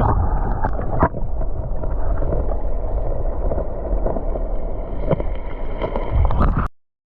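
Strong wind buffeting the microphone, a loud, steady low rumble, with a couple of short knocks; it cuts off abruptly near the end.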